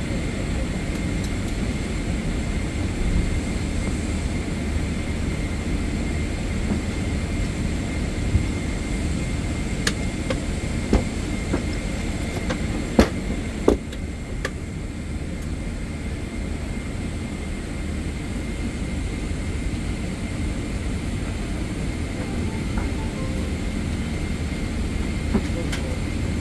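Steady low rumble with a thin, steady high whine inside the cabin of a Boeing 777-300ER airliner during pushback, with a few sharp clicks about ten to fourteen seconds in.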